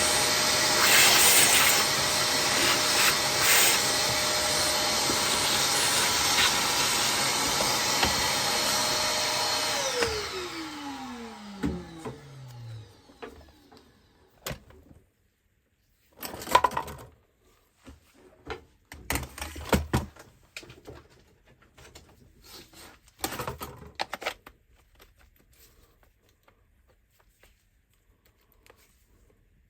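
Vacuum cleaner running steadily with a motor whine, switched off about ten seconds in, the whine falling as the motor winds down. Afterwards come a few scattered knocks and clicks.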